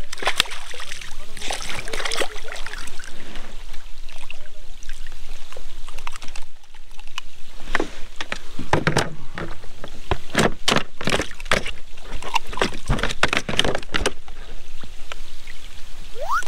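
A hooked palometa splashing at the water's surface beside a plastic kayak, then a run of sharp knocks and thumps on the kayak's plastic deck as the fish is landed and handled, the knocks coming thickest in the second half.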